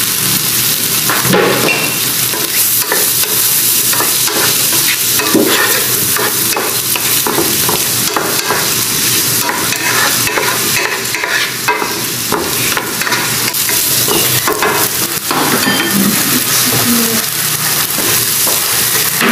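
Shrimp and corn kernels sizzling in hot oil in a nonstick pan, with a spatula repeatedly scraping and tossing through them.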